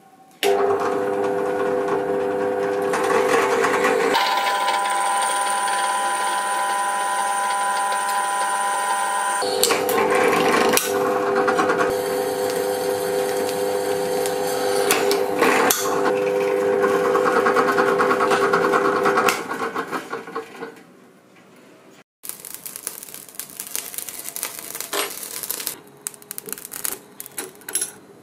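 Electric drill running with a steady whine as it bores handle holes through a spring-steel knife blade, its tone changing abruptly twice before it dies away about twenty seconds in. After a sudden break, quieter irregular clicks and crackling follow.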